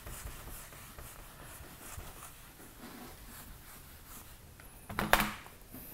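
Felt whiteboard eraser wiping across a whiteboard in a series of faint strokes, with one brief louder noise about five seconds in.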